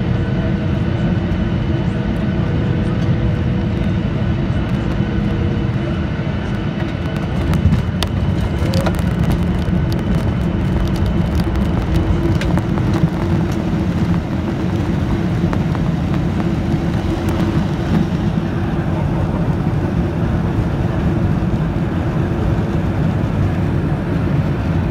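Cabin noise of a Ryanair Boeing 737-800 landing: a steady engine and airflow rumble, with a jolt and a few seconds of rattling about eight seconds in as the wheels touch down, then the rumble of rolling along the runway.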